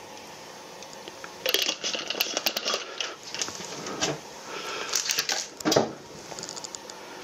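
Quick clicking and knocking as a hand coffee grinder's glass catch jar is tapped to empty the grounds into a flannel filter, then clatter of the grinder and a plastic container being handled and set down, with the loudest knocks near the end.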